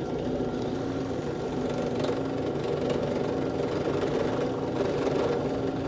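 Electric drill running at a steady speed with a constant motor whine, boring a small hole into the ball of a cell phone mount.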